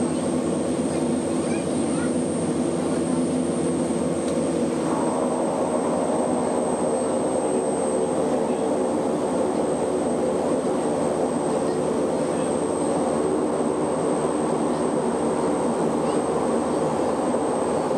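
Airship's engines running steadily, heard from inside the gondola as a constant drone with a fixed pitch; about five seconds in, the note gets fuller.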